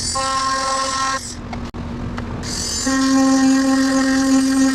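Electric rotary handpiece (micromotor with foot pedal) whining at a steady pitch as it grinds out cracks in the dashboard's padded foam. It runs twice: about a second at first, then again from about halfway for a longer, louder stretch.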